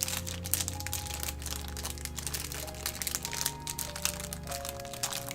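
Plastic kit-parts bag crinkling and small plastic parts clicking as they are picked out by hand, over soft background music with long held notes.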